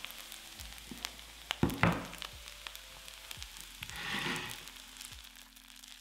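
A heavy stone bowl (dolsot) is set down onto its tray with a clunk and a short clatter about a second and a half in. Then comes a brief hiss that swells and fades around four seconds in. Soft background music plays underneath.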